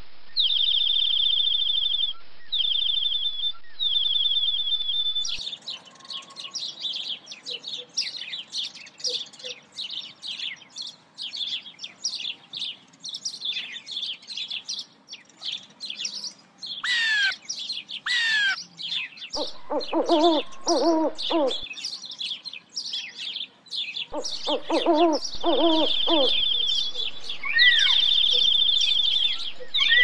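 Birds calling: a high, even trill repeated several times, then from about five seconds in a dense chorus of short chirps, with two falling whistles in the middle and two runs of lower calls in the second half. The trills return near the end.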